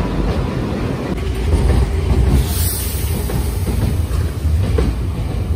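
Nankai Koya Line local electric commuter train running close past a station platform as it pulls out, with a loud, steady low rumble of wheels on rails. A brief high hiss comes about two and a half seconds in.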